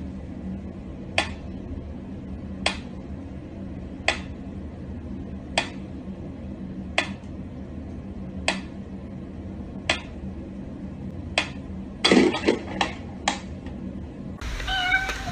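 Mechanical pendulum metronome ticking slowly and evenly, about one tick every one and a half seconds. About twelve seconds in comes a quick run of several irregular clicks, and then the ticking stops.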